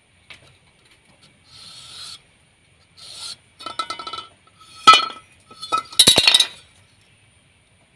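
Felt-tip permanent marker squeaking and scratching over a wooden block in a series of short strokes, getting louder, with the sharpest, loudest strokes about five and six seconds in.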